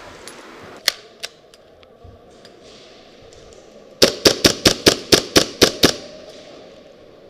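Airsoft guns firing: two single shots about a second in, then a quick string of about nine shots a few seconds later, lasting about two seconds.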